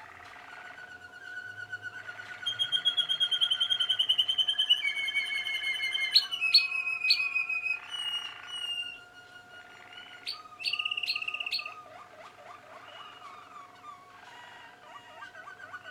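Young Malinois Waterslager canaries singing: long rapid trills, each held on one pitch before stepping to another every second or two, with sharp clicking notes between them. The song is loudest in the first half and comes back briefly about eleven seconds in, then goes softer.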